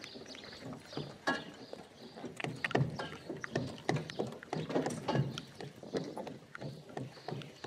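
Hooves of a two-animal team clopping on a dirt track as they pull a wagon, mixed with the wagon's irregular knocking and rattling.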